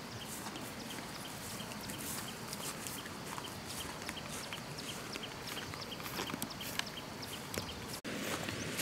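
Outdoor ambience: a steady hiss with many short, high chirps, a few each second, and a brief dropout near the end.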